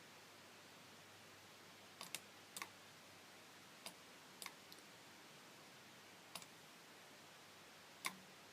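About eight short, sharp clicks at irregular intervals over a faint steady hiss, a few coming in quick pairs about two seconds in and halfway through, the loudest one near the end.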